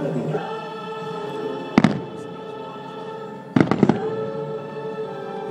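Aerial firework shells bursting, one sharp crack about two seconds in and a quick cluster of cracks a little later, over show music held on sustained chords.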